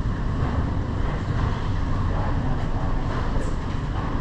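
Steady, low vehicle rumble with no distinct events.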